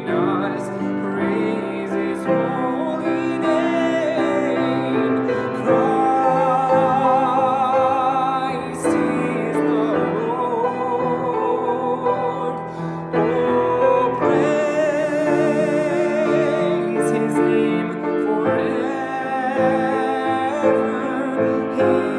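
A classically trained solo singer sings a slow Christmas art song with wide vibrato on long held notes, accompanied by piano chords.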